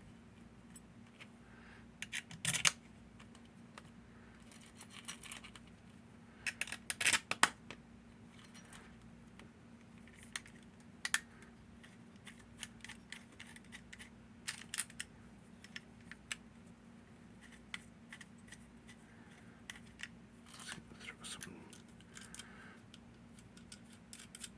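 Small metal parts of a Hori 1601 lever padlock clicking and clinking as the lock is handled and reassembled: scattered sharp clicks, some in quick clusters, the loudest about seven seconds in.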